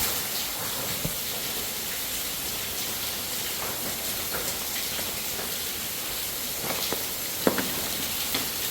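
Steady rushing hiss of a waterfall running down an abandoned lead mine's open stope, with one sharp tap near the end.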